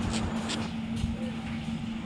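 Steady background rumble with a constant low hum.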